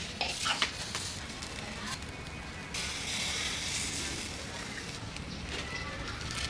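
Chicken leg quarters sizzling and crackling on a wire grill over hot charcoal while they are brushed with marinade. A few sharp crackles come near the start, and the hiss grows louder about three seconds in.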